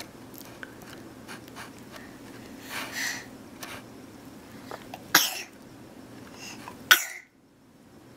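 A baby sneezing: two short, sharp sneezes about five and seven seconds in, after a softer breathy one near three seconds.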